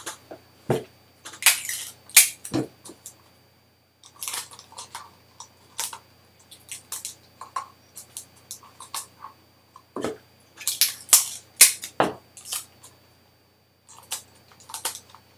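Hands handling a cut-down plastic cup with a balloon stretched over it: a scattered run of sharp clicks, rubs and snaps of plastic and rubber, loudest about two seconds in and again about ten to twelve seconds in.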